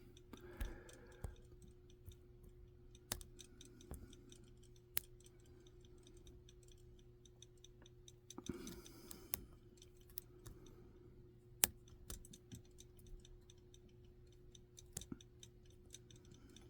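Faint, irregular clicks of lock picks working inside an Abus 82/63 monoblock padlock, a second or a few seconds apart, over a steady low hum.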